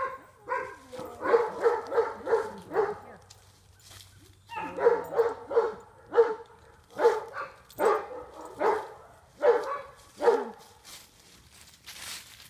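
A dog barking: a quick run of about half a dozen barks, then a second run about four and a half seconds in, then single barks about a second apart that stop near the end.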